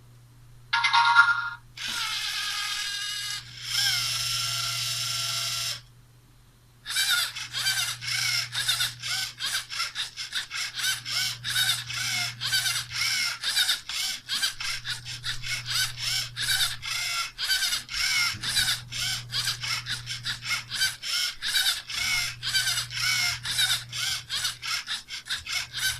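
LEGO Technic EV3 CNC plotter's motors and gears running: a short tone about a second in, two steady motor runs, then, after a brief pause, a long train of even ratcheting clicks about three a second over a low hum as the axes move.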